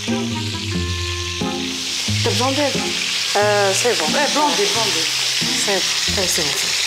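Background music: held chords changing in steps, then a sliding, wavering melody from about two seconds in, over a steady hiss.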